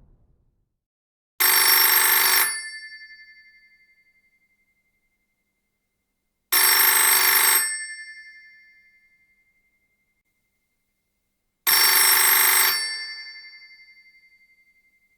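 Old telephone bell ringing in three bursts of about a second each, roughly five seconds apart, with the bell ringing out and fading after each burst.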